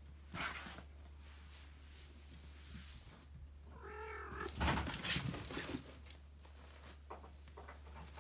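A cat gives one short meow about four seconds in, followed at once by a loud rustling of the fabric pop-up cat tent as a cat charges into it, with softer scuffs and rustles before and after.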